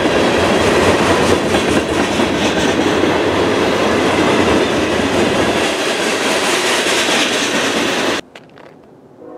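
Freight train's tank cars and open-top hopper cars rolling past, a steady loud rumble with the wheels clacking over rail joints. It cuts off abruptly about eight seconds in, leaving only a faint background.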